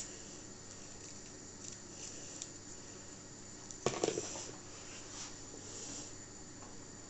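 Quiet kitchen handling noises while cooking: a sharp click at the start, faint rustling, and a short clatter of knocks about four seconds in.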